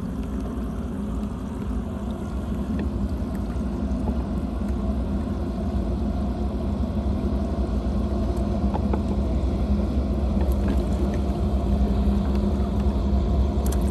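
Livewell pump running with a steady hum while its clear hose jets water into a cooler full of water, churning and splashing the surface.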